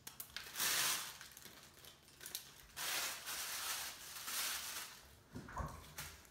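Plastic freezer bag crinkling in several short rustles as it is handled and carried, with a low thump near the end.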